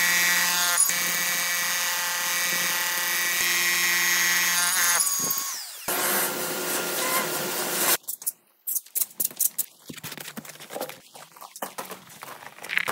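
Small electric power-tool motor running with a steady whine, winding down with falling pitch about five seconds in. A shorter rush of motor noise follows until about eight seconds in, then scattered light knocks and scuffs of handling.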